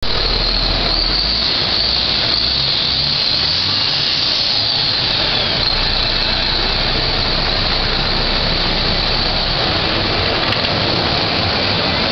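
MAN truck's diesel engine running steadily at a standstill, a loud, even mechanical noise with no revving.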